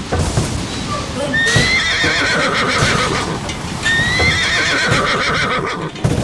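A horse whinnying twice, about a second and a half in and again about four seconds in, over clopping hoofbeats.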